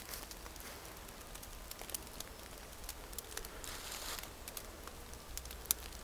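Faint crackling and rustling of dry fallen leaves underfoot, with scattered small clicks and a brief louder rustle about four seconds in, over a low rumble.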